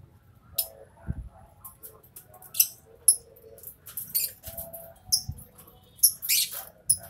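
Lovebirds chattering and giving short, shrill screeches in quick, irregular succession, the loudest a longer screech about six seconds in.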